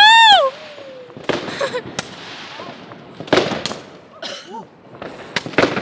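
New Year fireworks bursting, several sharp bangs a couple of seconds apart. It opens with a loud, shrill shriek that rises and falls in pitch over half a second.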